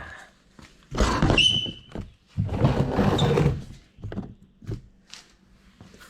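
Two stretches of clunking and scraping as things are handled and moved, the first with a short high squeak about a second and a half in.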